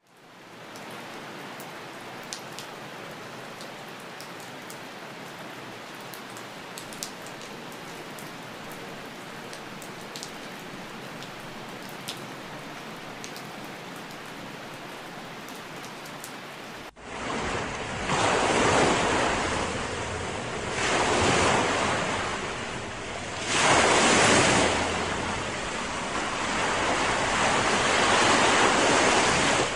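Water noise: a steady hiss with a few faint ticks, then an abrupt cut about 17 seconds in to louder rushing water that swells and ebbs every few seconds like surf.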